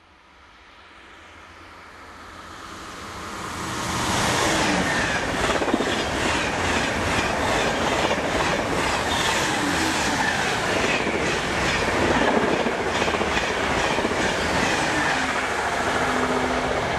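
TGV high-speed train approaching and passing at speed: a rushing noise swells over the first four seconds, then stays loud with a fast, even clatter of wheels over the rails as the carriages go by. Near the end a steady low hum comes in from a second, locomotive-hauled train.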